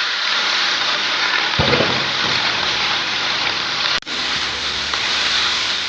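Food sizzling in a hot wok or pan, a steady hiss, with a brief break about four seconds in.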